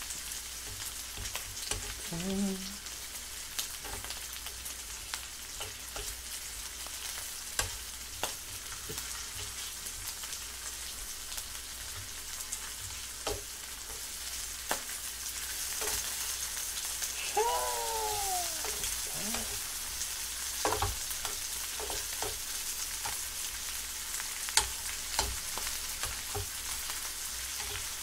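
Pork belly slices sizzling in a frying pan, a steady high hiss that grows a little louder past halfway, with sharp clicks and scrapes of metal tongs against the pan as the slices are turned.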